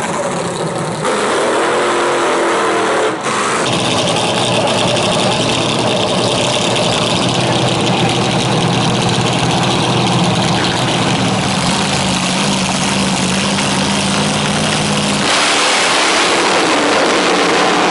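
Dragster engine running loud and steady through its burnout, the tyres smoking. The sound changes abruptly a few times where the clips are cut together.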